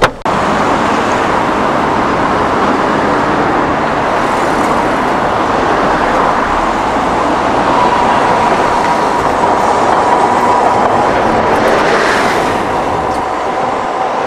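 Loud, steady running noise of a vehicle in motion, with a faint steady whine joining about halfway through.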